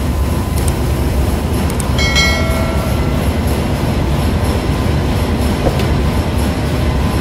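Loud, steady rumble of running ship engine-room machinery. A short chime rings about two seconds in.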